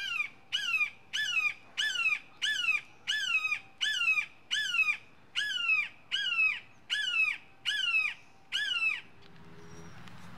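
Juvenile red-shouldered hawk calling a rapid series of more than a dozen loud, downslurred "kee-ah" screams, about two a second, stopping about nine seconds in.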